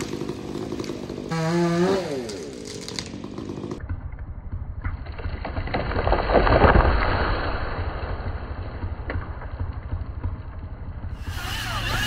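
Chainsaw cutting at the base of a tree, its pitch falling away as it comes off the throttle, then a low engine rumble with a swell of crashing noise peaking about six to seven seconds in as the felled tree comes down. A steady engine sound starts near the end.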